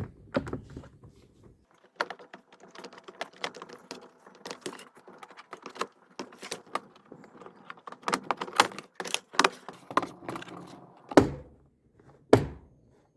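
Plastic clamshell casing halves of a Kärcher pressure washer being fitted and pressed together by hand: a run of irregular clicks, taps and rattles, with two louder knocks near the end.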